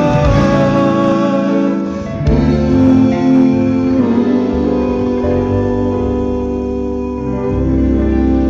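Music: long held chords over a strong, heavy bass.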